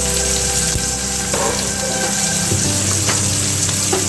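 Chopped onions and tomatoes frying in mustard oil in a kadai, a steady sizzle with a few light knocks.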